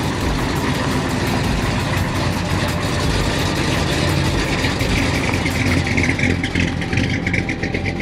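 A 1969 Ford F100's 390 big-block V8, bored and stroked to 434, running steadily as the pickup rolls slowly past at close range.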